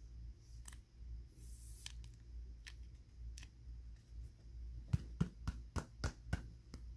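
Light clicks and taps of trading cards and clear plastic card stands being handled and set down on a wooden table: a few scattered clicks, then a quick run of about eight near the end.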